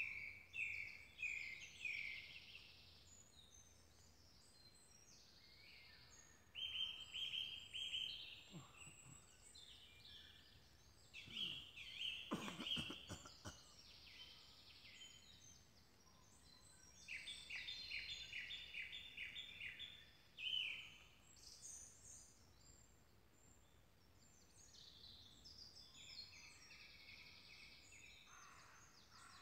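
Faint birdsong: songbirds singing short phrases of quickly repeated high notes, in bursts a few seconds apart.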